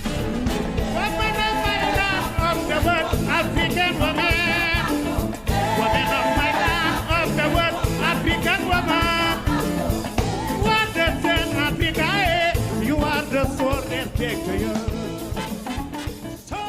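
Music with a sung vocal line over a steady beat, fading out near the end.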